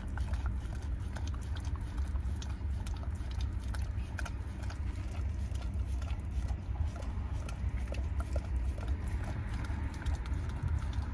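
A dog licking and smacking at a frozen ice-cream dog treat: a run of small, irregular wet clicks and laps, over a steady low rumble.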